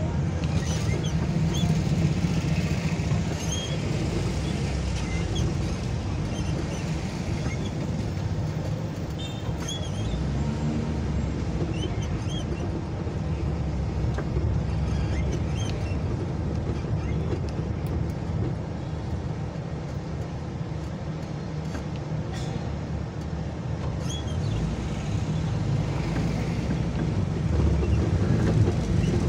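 Slow-moving city street traffic heard from a vehicle in it: a steady low rumble of engines and tyres, a little louder near the end.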